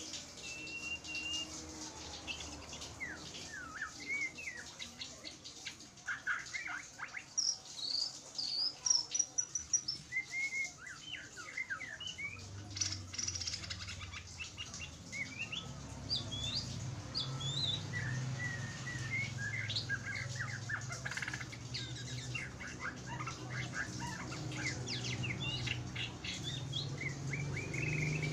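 Oriental magpie-robin (kacer) singing a varied string of whistles, chirps and quick trills. A steady low hum comes in about halfway through.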